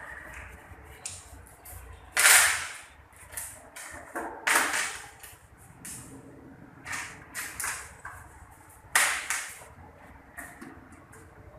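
Gas spurting from a split air conditioner's opened refrigerant line in short hissing bursts, three of them loud, with lighter clicks and puffs between.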